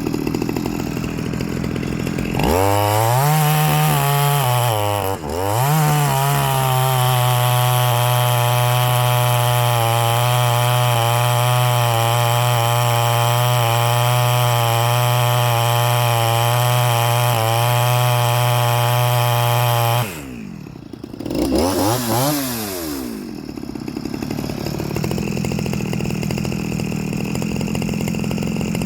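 Stihl 023C two-stroke chainsaw revved from idle to full throttle about two seconds in, with a brief dip, then held steady at high revs for around fourteen seconds before dropping back, blipped once, and settling to idle. The saw is being tuned, and the owner says it is not running right.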